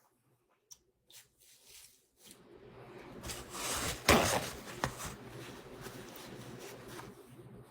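Crab being handled and eaten: rustling, rubbing noise starting about two seconds in, with a sharp snap about four seconds in and a smaller one soon after.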